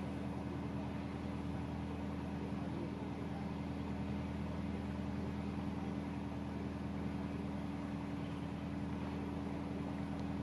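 Narrowboat's diesel engine running steadily under way: an even drone with several low hum tones that holds constant throughout.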